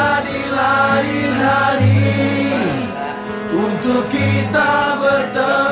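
Background music: a pop song's passage between sung lines, a held, bending melody over sustained bass notes.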